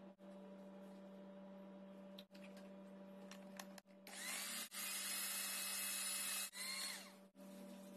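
Electric hand mixer motor running with a steady hum, its beaters whisking in a glass bowl. About four seconds in it gets much louder for a couple of seconds, speeding up and then winding down again, with several brief dropouts along the way.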